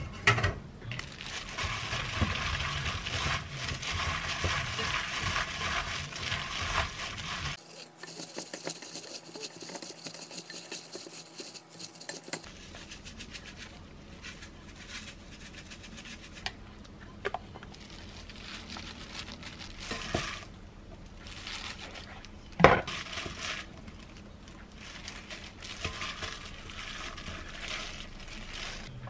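Noodles, vegetables and red chili sauce being tossed by a plastic-gloved hand in a glass mixing bowl: wet squishing and stirring with the crinkle of the glove, busiest in the first several seconds and then scattered handling. One sharp knock about two-thirds of the way through.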